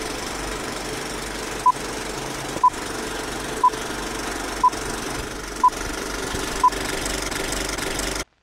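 Film projector running steadily, with a short high countdown-leader beep once a second, six in all. Everything cuts off suddenly near the end.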